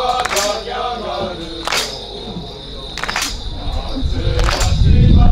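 Japanese folk singing over four sharp percussion strikes, evenly spaced about one and a half seconds apart. The voice fades after the first couple of seconds, and a loud low rumble builds near the end.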